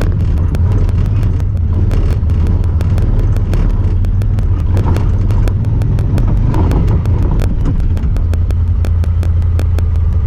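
Honda Talon 1000R side-by-side's parallel-twin engine running steadily under way, a loud low drone. A steady rapid ticking runs over it, which the uploader attributes to the camera rather than the machine.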